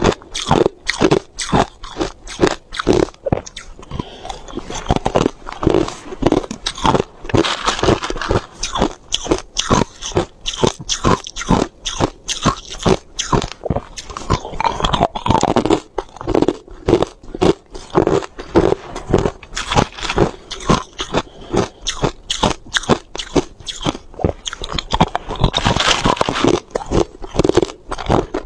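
Hard and crushed ice being bitten and chewed: a continuous run of crisp crunches, two or three a second.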